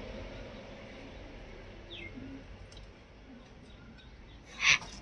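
Faint outdoor background with a few brief bird chirps, and one short, loud sound near the end.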